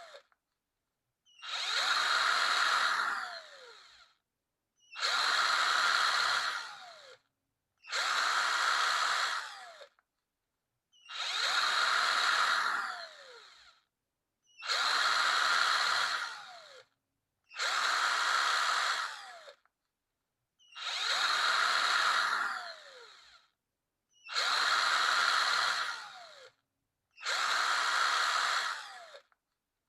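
Power drill run in about nine short bursts, each lasting two to three seconds with a brief silence between. Each burst ends with a falling whine as the motor spins down after the trigger is released.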